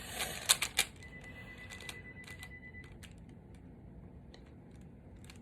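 A speed cube's plastic layers being turned rapidly: a quick flurry of clicks in the first second, then scattered single clicks.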